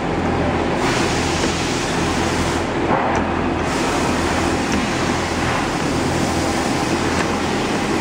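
Flatbed carton sample-making cutting machine running as its tool head travels over a sheet of thick cardboard: a steady machine noise with a low hum.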